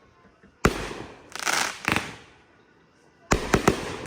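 Backyard consumer fireworks going off. A sharp bang comes about half a second in, then a rush of noise ending in rapid pops, and near the end a quick run of three bangs.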